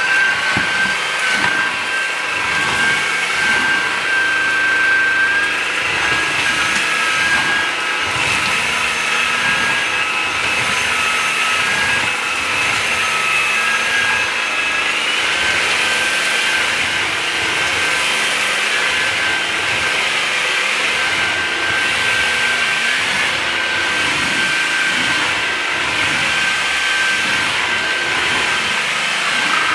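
Levoit LVAC-200 cordless stick vacuum running steadily with a high whine, working over a low-pile rug.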